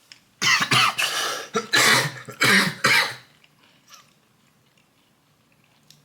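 A person coughing hard several times in a row for about three seconds, then stopping.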